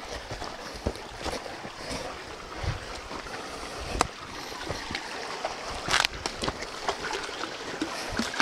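Footsteps and brush crackling through forest undergrowth beside a small creek, with running water underneath. Scattered sharp snaps and knocks stand out, the loudest about four and six seconds in.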